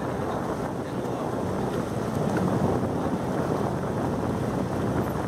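Boat running steadily over the water, with wind noise on the microphone.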